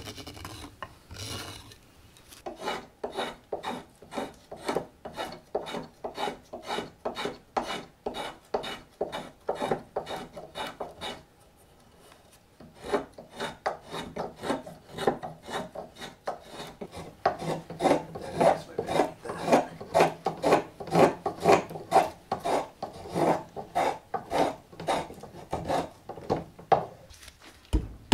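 Hand carving knives shaving green walnut: a hook knife scooping the ladle's bowl and a straight carving knife paring the handle. The knives make quick scraping cuts, about two a second, with a short break a little before halfway.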